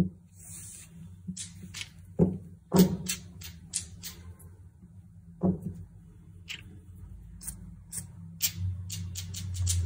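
Small plastic paint bottles handled by hand, their caps and sides clicking and knocking against each other and the tabletop in irregular taps that come more often near the end. A steady low hum runs underneath.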